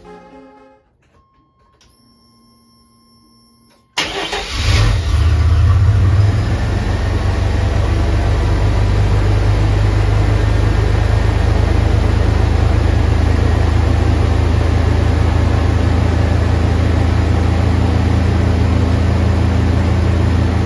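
1988 Chevrolet S-10 pickup's engine, with a rebuilt throttle body fuel injection, starting suddenly about four seconds in, a little louder for the first couple of seconds, then running steadily at idle.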